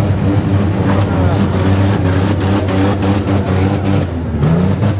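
Several demolition-derby minivan engines running hard under load, with a run of metal crunches and bangs as the vans ram and shove each other in the middle stretch, and one engine revving up near the end.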